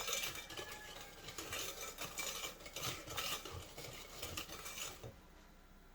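Hand whisk beating a wet cookie batter of melted butter, sugar and egg in a bowl, the wires clicking and scraping against the bowl in quick repeated strokes; the mixture is at the ribbon stage. The strokes stop about five seconds in.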